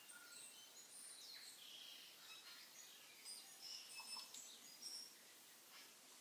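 Faint birdsong: many short chirps and whistles, some sliding in pitch, busiest about halfway through, over a low hiss.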